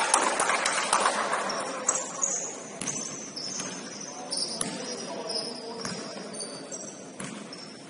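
Basketball game play on a gym court: sneakers squeaking in short high chirps and a basketball bouncing a few times, in a reverberant hall. The noise is loudest in the first second or so, then settles.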